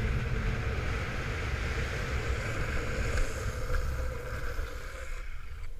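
Wind buffeting the camera microphone over the steady hiss of longboard wheels rolling fast on wet asphalt. The hiss thins out near the end as the board slows.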